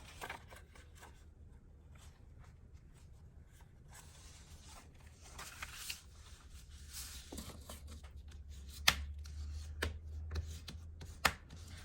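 Paper and card handled on a table: rustling and rubbing, with a few sharp taps in the second half.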